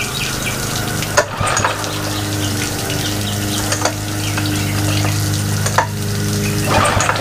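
Yamaha F6 four-stroke outboard running steadily at idle under a steady hiss of running water, with a few sharp clicks and knocks of hands and tools on the motor, the loudest about a second in.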